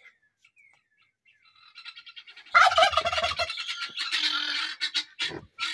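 Domestic turkey gobbling: a rapid rattling call that begins about two seconds in, is loudest just after, and carries on in noisy stretches.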